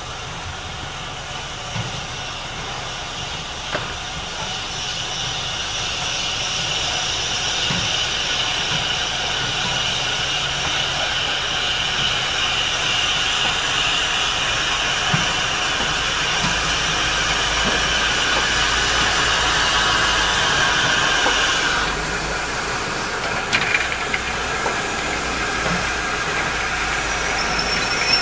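LMS 'Crab' 2-6-0 steam locomotive No. 13065 approaching with its train, a steady hiss of steam growing louder as it nears, easing slightly about three-quarters in. A few sharp clicks follow near the end.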